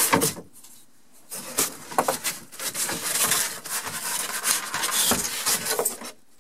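Sheet of rigid foam insulation board being slid and dragged across a luan plywood base: a few knocks at first, then a long continuous scraping rub from about a second in, with a thump near the end.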